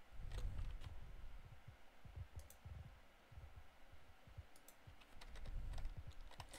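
Faint, scattered clicking and tapping of a computer keyboard and mouse, with soft low thuds in between.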